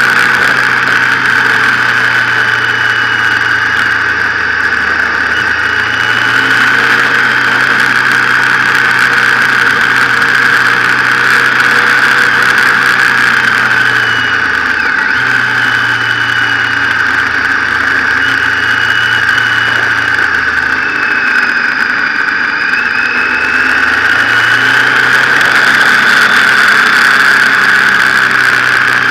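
Motorcycle engine running under way, heard from on board the bike. The engine note falls away briefly about halfway through and again about two-thirds through, then comes back.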